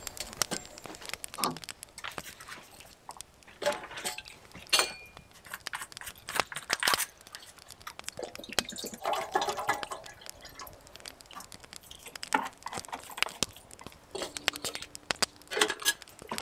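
Metal camp cookware being handled on a small brass Svea stove: the kettle and pot lids clink, knock and rattle in an irregular run of light metallic taps.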